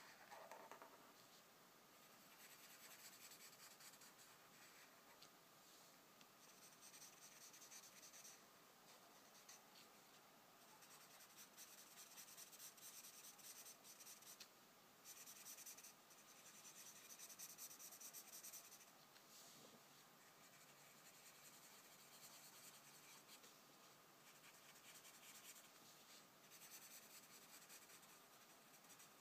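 Faint scratching of a felt-tip marker on paper: repeated strokes filling in a solid black area, in spells of a few seconds with short pauses between.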